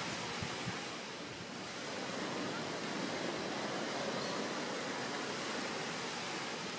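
Steady outdoor rushing noise, like wind or surf. A few soft low thumps fall in the first second. The wrestling iguanas make no sound of their own that stands out.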